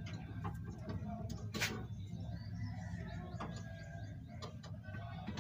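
Scattered metallic clicks and taps of a hand tool working on a car battery's cable clamp, tightening a loose terminal that was starving the starter of current, with one sharper knock about a second and a half in. A steady low hum runs underneath.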